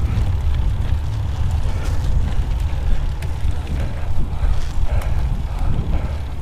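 Wind buffeting the microphone of a helmet-mounted GoPro while cycling, a steady low rumble.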